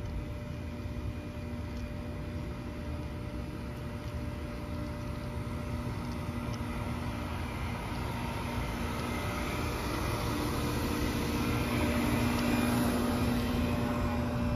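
Several outdoor air-conditioning condenser units running: a steady mechanical hum with fan noise that grows louder and peaks about twelve seconds in. A low rumble sits underneath throughout.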